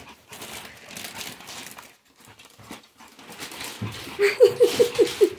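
A thin plastic bag rustling and crinkling as dogs nose into it and sniff at a gift box. About four seconds in, a dog breaks into a quick run of short, high whimpers.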